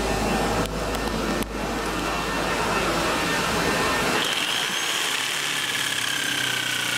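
Electric jigsaw running, its blade sawing against a steel bicycle frame tube. About four seconds in the sound changes: the low rumble drops away and leaves a steady high whine.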